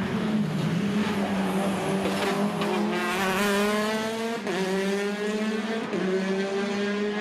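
Rally car engine at high revs, accelerating hard with its pitch climbing, broken by quick gear changes about four and a half and six seconds in.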